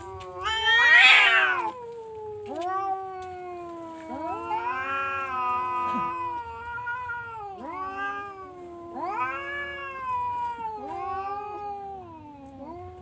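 Domestic cat yowling in long, drawn-out, wavering calls one after another, with a loud rising cry about a second in.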